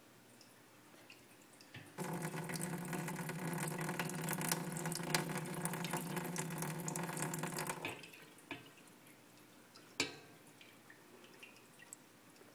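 A leaking coffee urn's spigot: about two seconds in, water runs from it in a steady stream for about six seconds, then stops abruptly. Single drips tick after it.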